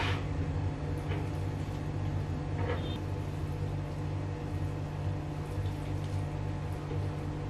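Hands rolling a raw, stuffed pork loin on a cutting board, making faint soft handling sounds with an occasional light tick, over a steady low hum.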